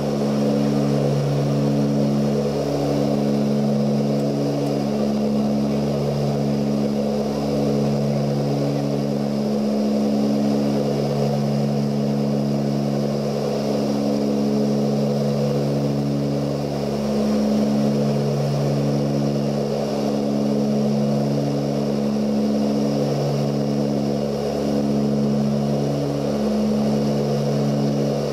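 Ilyushin Il-18's Ivchenko AI-20 turboprop engines and propellers running in flight, heard inside the cabin: a steady low drone of several pitches that throbs slowly as the propellers beat against each other, over a hiss of airflow.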